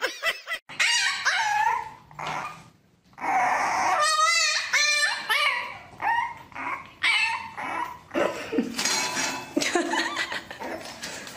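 Puppy whining and yelping: a long series of high-pitched cries that rise and fall in pitch.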